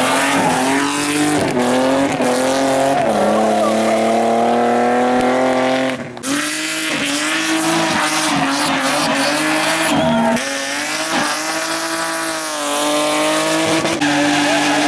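Hillclimb race car engine at full throttle, pitch climbing through the revs with quick drops at gear changes. A sharp break about six seconds in, after which engine running resumes.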